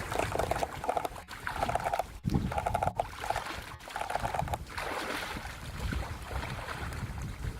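Fly reel's click ratchet buzzing in about four short bursts, each around half a second, while a hooked salmon is being played, with wind rumbling on the microphone.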